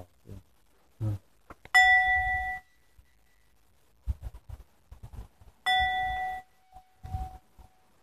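A singing bowl struck twice, about four seconds apart. Each strike rings with a clear, bell-like tone that is cut short after under a second and then lingers faintly. There are low handling knocks and rustles in between.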